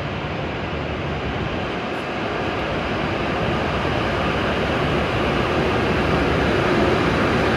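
E7 series Shinkansen train pulling out of the station, its running noise growing steadily louder as it picks up speed.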